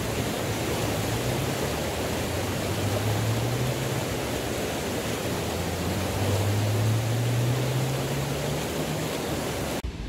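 Fast mountain river rushing over rapids close by, a steady dense roar of water. Underneath, a low hum rises slowly in pitch twice, and the sound cuts off abruptly near the end.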